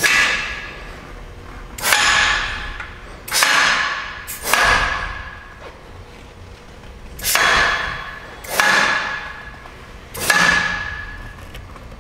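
Air-operated clamps of an RFS Protech PT-7 radius forming machine firing seven times at uneven intervals. Each shot is a sudden clack followed by a rush of air that fades over about a second.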